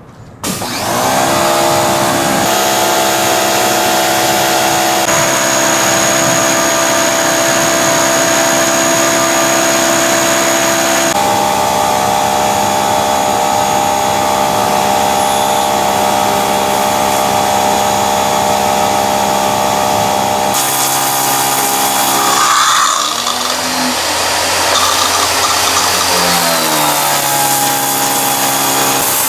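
PAXCESS 3000 PSI electric pressure washer running and spraying: a steady motor-and-pump whine over the hiss of the water jet. It starts about half a second in, its pitch shifts at a few points, and it wavers up and down near the end.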